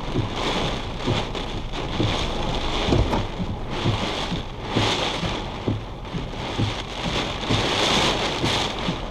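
Heavy wind-driven rain beating on a vehicle, heard from inside the cabin, with gusts swelling louder about halfway through and again near the end, and scattered low knocks as the car is pelted and buffeted.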